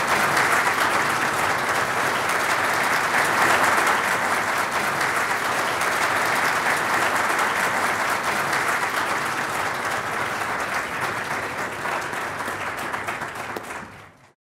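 Large auditorium audience applauding steadily. The applause eases a little toward the end and then cuts off abruptly.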